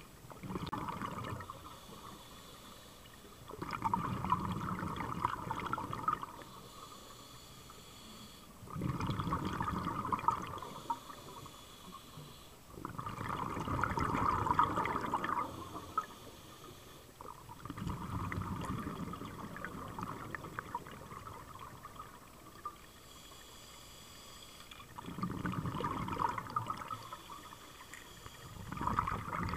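Scuba diver breathing through a regulator underwater: a burst of bubbling exhaust on each exhale, about every four seconds, with quieter inhales between and a longer pause past the middle.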